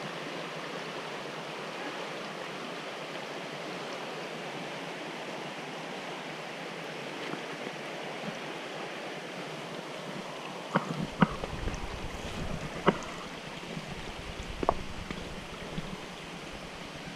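Creek water flowing over rocks, an even rushing. From a little past halfway there are a handful of sharp knocks from walking over rocky ground.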